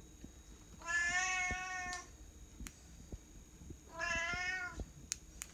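A Bengal cat meowing twice: a drawn-out meow of about a second, then a shorter one about two seconds later.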